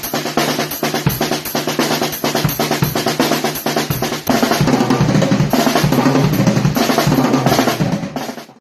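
Drum kit played fast: rapid snare and bass drum strokes with drum rolls, getting louder about four seconds in and fading out near the end.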